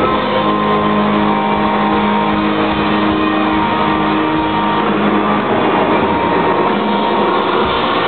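Live rock band playing loud, with distorted electric guitars holding long sustained notes over a dense wash of sound, heard muffled from far back in a large hall.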